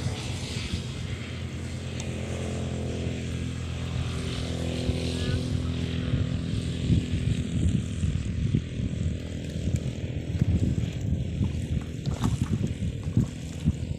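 A motor engine running at a steady pitch, fading from about halfway through, with wind buffeting the microphone more and more toward the end.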